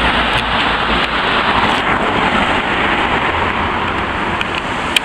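Classic American car driving by on a street: a steady, loud hiss of road noise over a low rumble.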